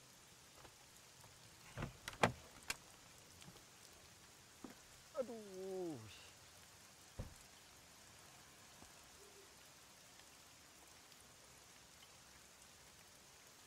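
Light rain hissing steadily, with a few sharp clicks of a car door being opened about two seconds in, a man's voice in one falling groan around five seconds, and a single thump of the door shutting a little after seven seconds.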